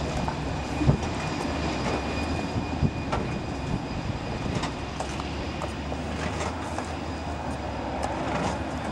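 Flybe Bombardier Dash 8 Q400 turboprop running on the runway: a steady low propeller drone under a high turbine whine held on one pitch, with a few short knocks.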